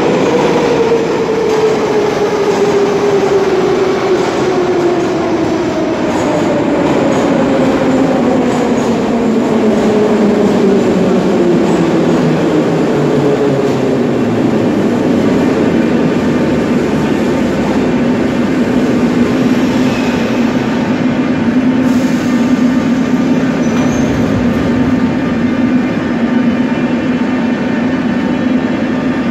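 Moscow Metro 81-717.5/714.5 train pulling into the station: its whine falls steadily in pitch as it brakes over about fourteen seconds, over the rumble of the wheels. It then holds a steady hum as it stands at the platform.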